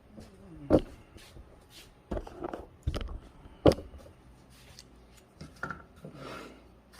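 A series of sharp knocks and clunks with some rustling, loudest about three-quarters of a second in and again just under four seconds in: things being handled and set down indoors.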